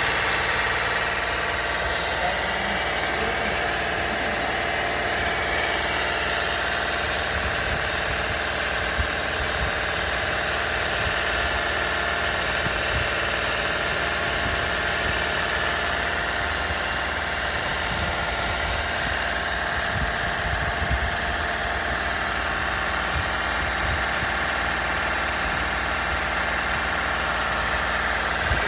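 Toyota 2GR-FE 3.5-litre V6 engine running steadily during coolant bleeding, with air being purged from the cooling system through the bleeder hose.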